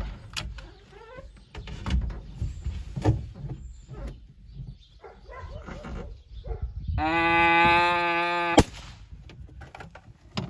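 A long, steady call of about a second and a half, cut off by a single sharp rifle shot about eight and a half seconds in: the shot that drops one of the cattle. Scattered light knocks before it.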